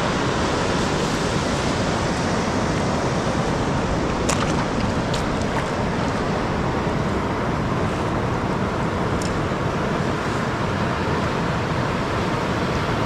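Steady rushing noise of ocean surf and wind over the microphone, with a few faint clicks.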